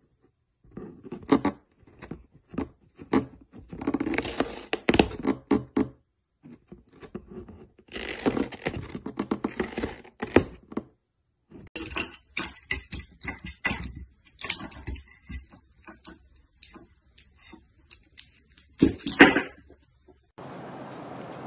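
A cat biting and chewing the edge of a cardboard box: irregular runs of crunching and tearing cardboard, with one sharp, louder crunch near the end.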